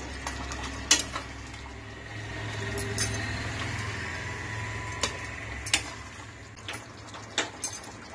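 Spatula stirring a pan of simmering chicken curry. About eight sharp clinks of the utensil knocking against the pan are scattered through it, over a low, steady background.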